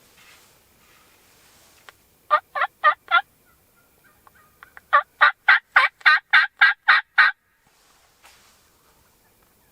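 A series of turkey yelps: a short run of four notes, then after a pause a longer run of about ten, roughly four a second.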